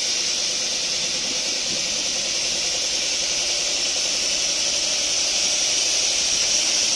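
Compressed air hissing steadily from a three-phase electric locomotive's air dryer while the compressor runs, with a faint steady hum beneath it. The dryer is leaking continuously, a fault that calls for bypassing it.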